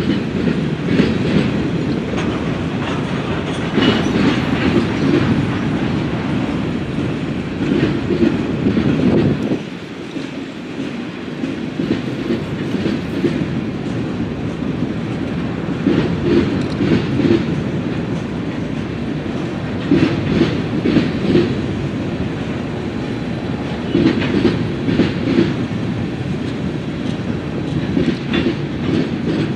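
Freight train of covered hopper cars rolling past: a steady rumble of the cars with groups of wheel clickety-clack coming back about every four seconds as each car's wheel sets cross the rail joints, briefly quieter near ten seconds in.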